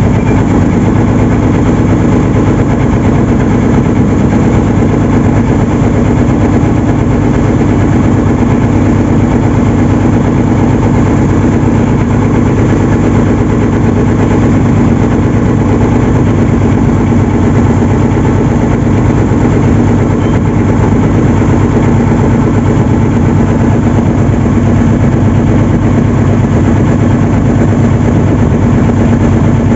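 Outrigger bangka boat's engine running steadily and loud while the boat is underway, a constant low drone with no change in speed.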